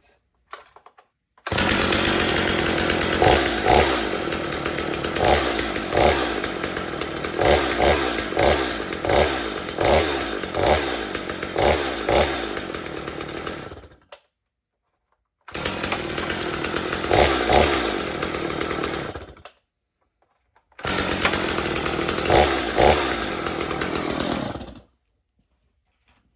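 Two-stroke gas chainsaw running with its throttle blipped over and over, the engine note surging up and falling back about once a second. It runs in three stretches, the first about twelve seconds long, and each one cuts off abruptly.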